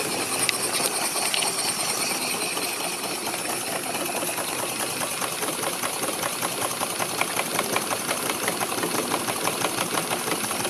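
Small model steam engine running fast with a rapid, even mechanical clatter over a steady hiss of steam.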